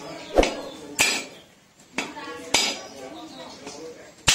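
A whole husked coconut being struck to crack it open: five sharp knocks at uneven spacing, the last among the loudest.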